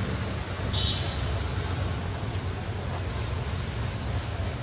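Steady outdoor background noise with a low rumble, and one short high squeak about a second in.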